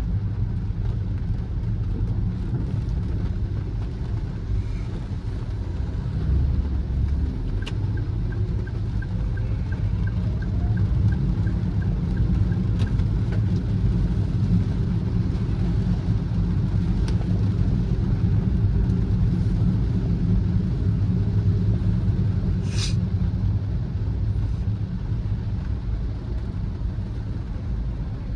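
A car driving on a wet road, with a steady low rumble from the road and engine. A run of faint high ticks, about three a second, comes in around eight seconds in and stops about five seconds later, and a short hiss passes near the end.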